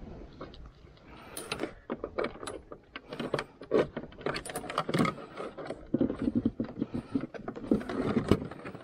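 Keys jangling on a ring, with a run of small clicks and knocks as gloved hands handle the key and the seat of a Kawasaki Versys X300 motorcycle.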